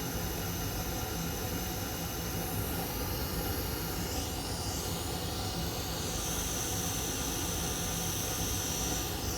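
Hot air rework station blowing steadily onto the board to reflow a newly placed power IC, with a faint high tone through the second half.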